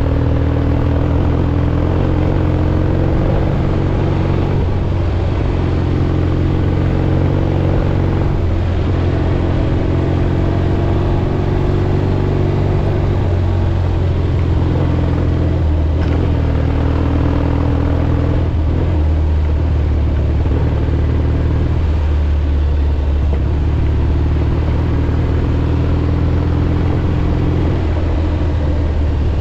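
A 1967 Triumph Bonneville T120's 650 cc parallel-twin engine running steadily under way, its pitch drifting up and down a little with the throttle. It is heard on board from a helmet camera, over a steady rush of wind and gravel road noise.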